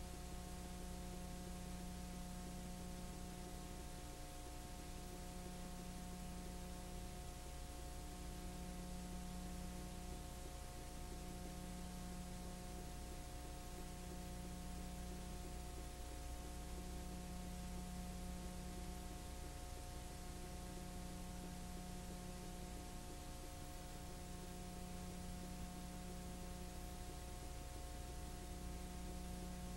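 Steady electrical hum under a layer of hiss, with a low tone in the hum dropping out briefly every few seconds. This is background noise of the transfer: a 9.5 mm home movie of this kind has no soundtrack of its own.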